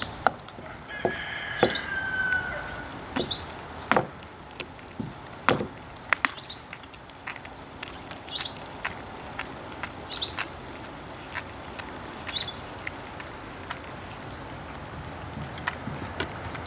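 Siberian husky gnawing a raw cow marrow bone: irregular sharp clicks and scrapes of teeth on bone, a few every second. A bird chirps in the background near the start.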